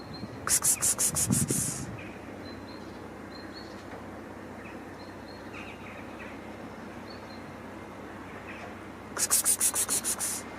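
Two bursts of fast, even rasping strokes, about six a second, each lasting about a second and a half: one near the start and one near the end. Faint short chirps come and go between them.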